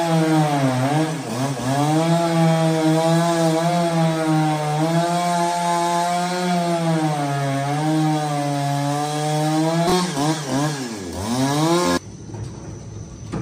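Petrol chainsaw running at high speed while cutting a large log, its engine pitch dipping and recovering about a second in and again near ten seconds. It cuts off suddenly about twelve seconds in, leaving only faint background noise.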